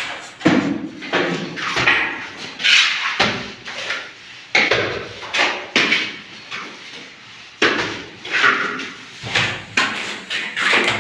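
Plastering work on a wall: a run of trowel strokes on wet cement plaster, each a sharp slap or scrape with a short scratchy tail, about one a second, in a small echoing room.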